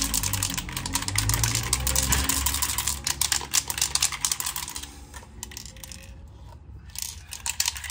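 A 2K polyurethane aerosol spray can being shaken hard, its mixing ball rattling rapidly to blend in the hardener just released inside it. The rattling thins out for a couple of seconds after the middle, then picks up again near the end.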